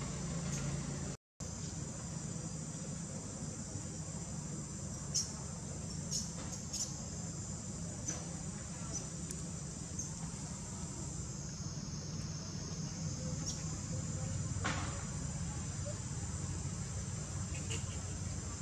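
Steady high-pitched insect chorus, with a low steady hum beneath and a few faint clicks; the sound cuts out for a moment about a second in.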